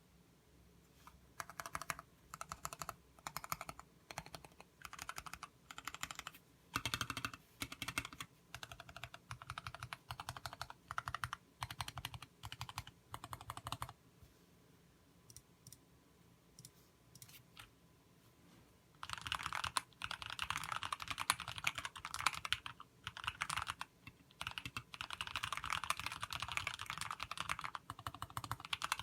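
Typing on a TX60 mechanical keyboard with Kailh Box Black linear switches, lubed with Krytox 105, under thick MT3 keycaps. Short bursts of keystrokes come first, then a pause of a few seconds with only a few scattered clicks about halfway through, then fast, steady typing for the last ten seconds.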